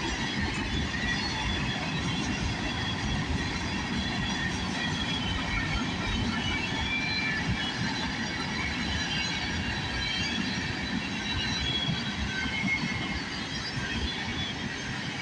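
Freight train cars rolling steadily past: a continuous rumble of steel wheels on the rails, with brief faint high squeals from the wheels.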